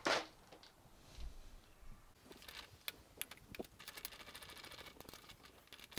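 Faint handling noise: small clicks and light rattles of metal parts and tools being picked up and set down, with a quick run of small ticks about four seconds in.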